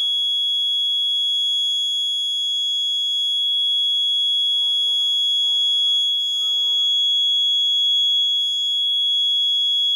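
Electronic alarm buzzer on an Arduino accident-detection circuit sounding one continuous high-pitched tone. It is the accident alarm, held while the GSM module sends the SMS alert.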